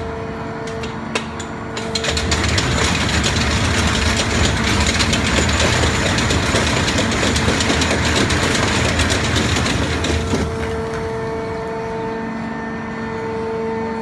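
An EBH200 roadheader's studded rotary cutting head grinds into potash rock, a dense crackling, grinding noise over the machine's steady droning hum. The grinding grows loud about two seconds in and eases back about ten seconds in, leaving the hum clearer near the end.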